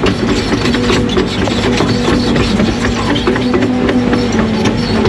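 Diesel engine of a piece of construction equipment running steadily, with many quick clicks and knocks of rattling metal over it.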